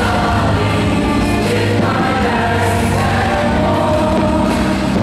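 Choir singing with musical backing over a stadium sound system, in long held notes.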